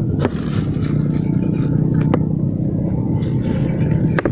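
A boat engine running steadily with a low hum, with three short knocks spread through it.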